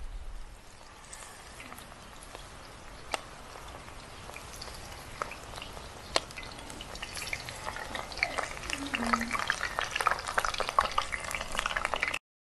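Beer-battered kangkong (water spinach) leaves deep-frying in hot oil in a stainless pot: a faint sizzle with scattered crackles and pops. The crackling grows busier over the second half as more battered pieces go in, then stops abruptly near the end.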